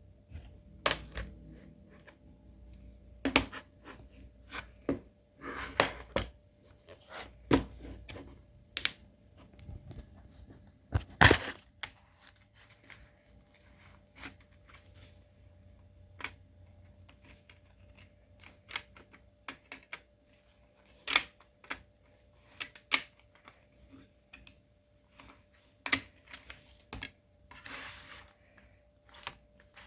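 Scattered clicks, taps and knocks at irregular intervals, with a louder knock about a third of the way through, over a faint steady hum.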